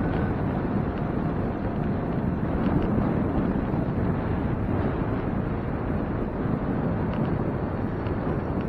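Wind buffeting the microphone of a camera riding on a moving bicycle: a steady, low rushing noise.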